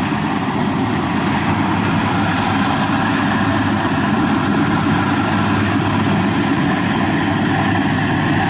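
FMWorld WD 102pro rice combine harvester running steadily while cutting rice: a constant engine drone with the noise of its working machinery.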